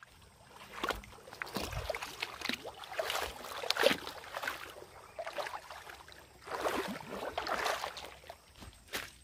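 Feet splashing and sloshing through shallow, rocky river water as someone wades, in two runs of irregular splashes, the loudest about four seconds in.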